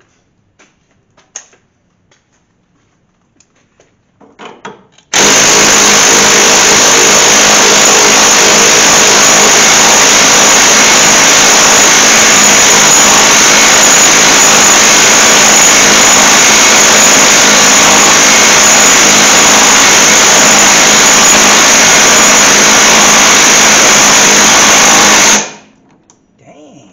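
A loud power tool starts abruptly about five seconds in, runs steadily for about twenty seconds, then stops, while a deep socket is on a stubborn strut-rod nut. A few light clicks and knocks of tools come before it.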